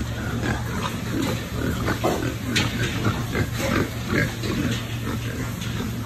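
Many domestic pigs grunting over and over, in short overlapping calls, over a steady low hum, with one sharp click about two and a half seconds in.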